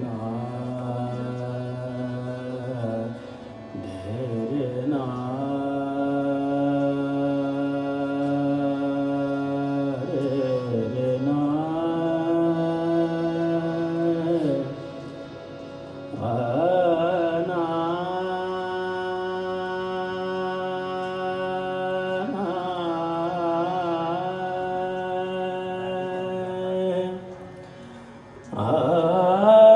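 Slow Hindu devotional bhajan to Shiva: a singer holds long notes, each lasting several seconds, over a sustained harmonium, with wavering ornaments on some notes. Phrases are separated by short breaks.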